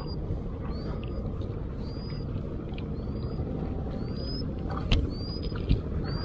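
Steady wind and water noise at a sea shoreline, with a short rising chirp repeating about once a second and a couple of sharp knocks about five seconds in.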